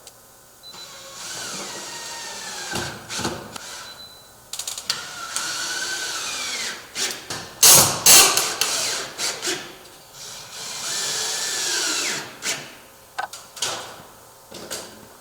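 Power drill run in three long bursts and several short ones while fastening 1x3 wood boards, its motor pitch sliding downward within the runs. A few sharp knocks just before the middle are the loudest sounds.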